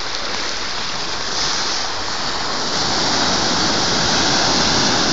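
Sea waves breaking and washing through the shallows, a steady rush of surf that grows louder in the second half.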